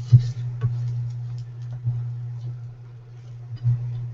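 Wooden spoon stirring dry arborio rice in a stainless steel skillet, giving a few light ticks and scrapes as the grains are toasted in oil and butter. A steady low hum runs underneath.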